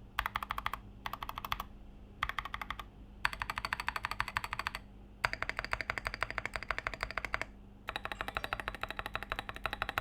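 KBD75 v3.1 mechanical keyboard with Tecsee Coffee switches on an aluminium plate, typed on fast in several runs of rapid keystrokes with short pauses between them. This is the board's stock sound, unmodded.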